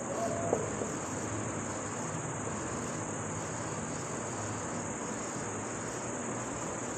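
Crickets chirring steadily in the background as one continuous high-pitched drone over a low hiss.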